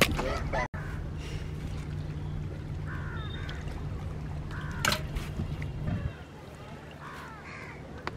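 Crows cawing several times with short, harsh calls, over a low steady hum that fades about six seconds in. A sharp knock about five seconds in is the loudest sound.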